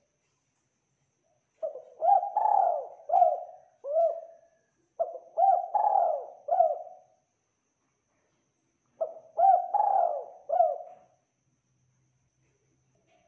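Spotted dove cooing: three phrases of four or five short, arching coos each, with gaps of a second or two between phrases.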